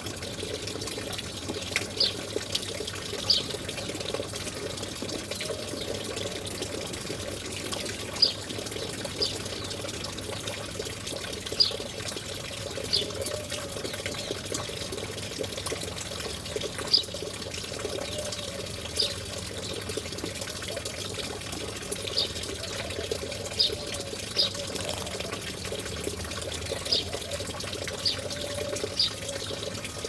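Steady running water, with short high bird chirps every one to three seconds, about fourteen in all.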